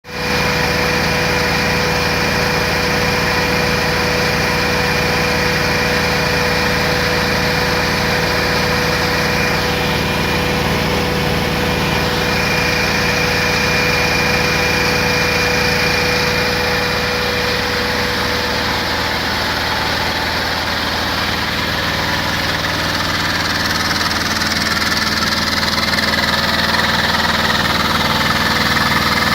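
Bauer 20 cfm high-pressure compressor running steadily, a constant mechanical hum with a thin high whine over it.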